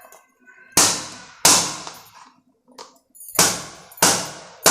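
A block of jaggery being struck to break off pieces: four sharp blows, each dying away quickly, in two pairs with a pause between them.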